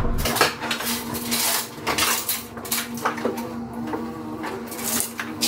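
Metal objects clattering and clanking in a run of irregular sharp knocks, over a steady low hum.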